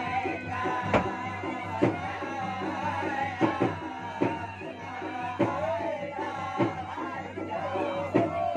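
Traditional Makassar gendang drums playing a driving rhythm with sharp accented strokes, under a wavering melody line.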